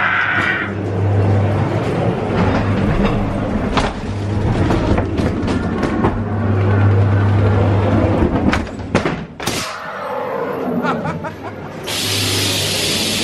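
Ghost train ride car running along its track with a low rumbling drone and many sharp knocks and rattles, with ride music playing. A steady hiss comes in near the end.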